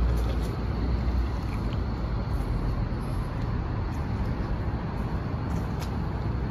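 Steady low rumble of outdoor street noise, with vehicle engines idling close by.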